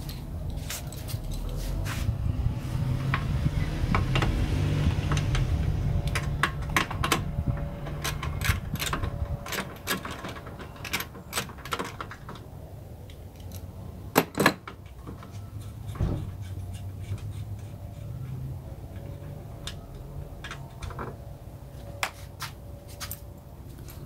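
Irregular metallic clicks and clinks of a socket wrench with a long extension working a 10 mm nut on the ECU mounting, some in quick runs and a few sharper single knocks. A low rumble runs under the first half.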